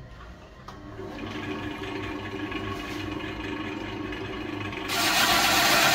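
Wood lathe starting up about a second in, its motor running up to a steady hum as the coconut palm log spins up. Near the end a turning tool bites into the spinning log with a sudden, loud, rough cutting noise.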